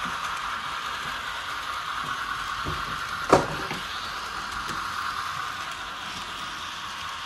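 Model trains running on a tabletop layout: a steady mechanical rattle and whir of locomotive and cars on the track, with one sharp knock a little over three seconds in.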